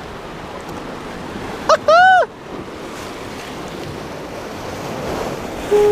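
Surf washing against the jetty's rocks, with wind on the microphone. About two seconds in, a short, loud two-part call rises and falls in pitch. Just before the end, a steady low horn begins to sound.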